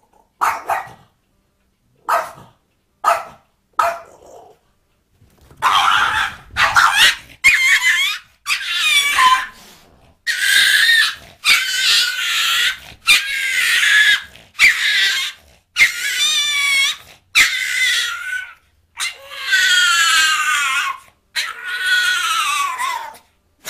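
Small dog barking repeatedly: a few short yaps in the first four seconds, then, after a brief pause, a fast run of longer barks, many of them falling in pitch.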